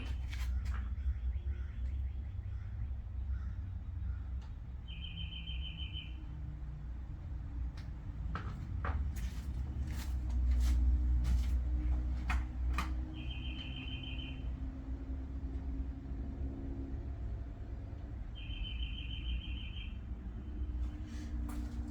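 A bird's short trilled song, repeated three times at intervals of several seconds, over a steady low rumble, with a few sharp clicks in the middle.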